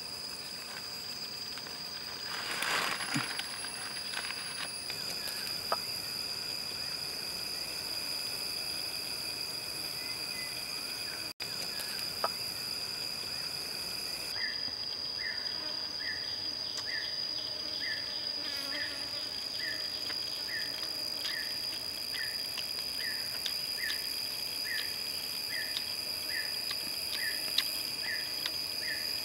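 Insects droning steadily in a high, even whine. From about halfway a short chirp repeats regularly, roughly every three-quarters of a second. Near the start there is a brief rustle.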